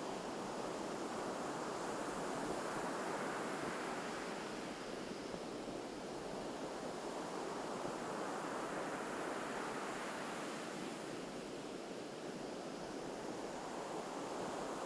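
Ocean surf washing onto a beach in a continuous wash, swelling and easing as waves break, with some wind on the microphone.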